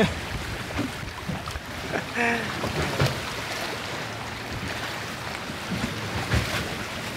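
Wind and water rushing steadily past a sailing catamaran's hulls under sail, its engine shut off. A brief voice sounds about two seconds in, and a faint low drone joins from about four seconds in.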